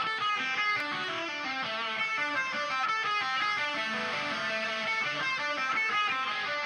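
Background music with quick runs of notes at a steady level.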